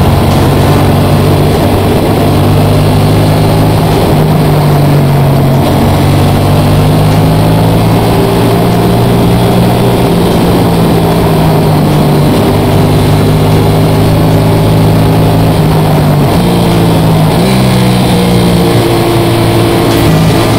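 Vehicle engine running at road speed under a steady rush of wind and road noise. Its pitch holds steady with a few small steps, then rises briefly about three-quarters of the way through as it speeds up.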